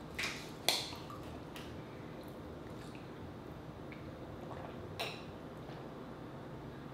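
Plastic water bottle picked up and drunk from: sharp plastic crackles, the loudest about a second in and another about five seconds in, with faint liquid and swallowing sounds between.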